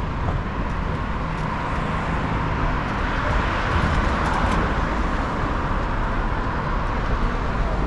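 City traffic passing on the bridge roadway: a steady rush of cars and trams, swelling a little around the middle.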